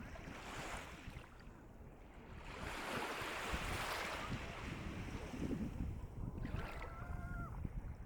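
Calm sea waves washing onto the shore, one wave swelling and breaking about three seconds in and its wash hissing on after. A low rumble runs underneath.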